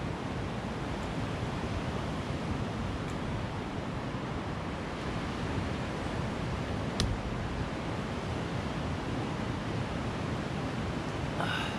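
Steady outdoor rushing noise, wind on the microphone or distant surf, with a single sharp click about seven seconds in.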